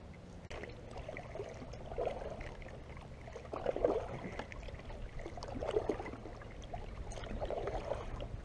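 Kayak paddle strokes in the water, a swish about every two seconds.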